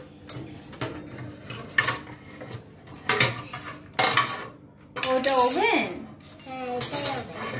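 Metal kitchen tongs clinking and scraping against a plate as food is lifted onto it: a series of separate clinks, with a short wavering pitched sound about five seconds in.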